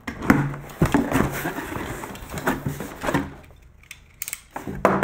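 A cardboard shipping box being opened by hand: flaps pulled back and paper handled inside, giving rustling with many short knocks and scrapes. It quietens about three and a half seconds in, with a few sharp taps near the end.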